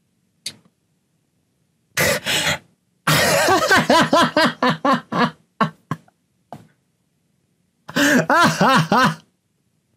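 A person laughing: a short breathy burst about two seconds in, then a long run of rhythmic ha-ha pulses, and a second short bout of laughter near the end.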